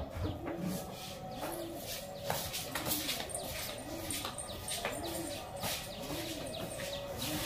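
A pigeon cooing over and over: low coos that rise and fall, about one a second, with short high chirps of small birds mixed in.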